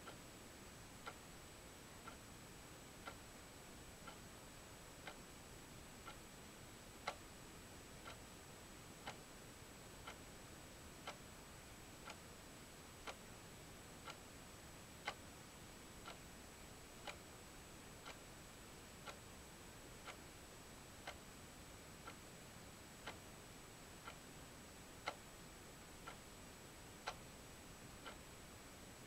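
Faint, steady ticking, one tick a second, some ticks a little louder than others, over low hiss and a thin steady high-pitched whine.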